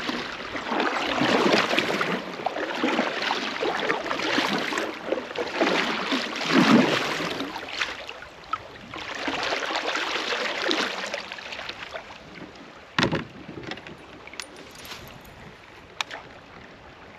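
Kayak paddle strokes splashing in a river current, with water rushing past the hull. The strokes come in swells every second or two, then die away after about twelve seconds, leaving a quieter wash and a couple of sharp knocks.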